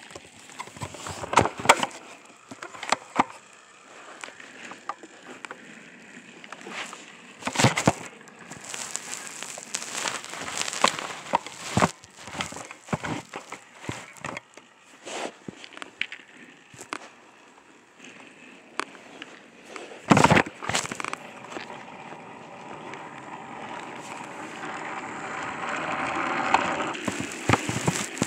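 Plastic toy trains and track clattering and knocking as they are handled, with a small battery-powered toy train motor whirring and growing louder near the end.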